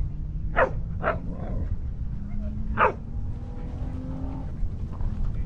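A dog barking three times, short sharp barks about a second in and again near the middle, over a steady low rumble.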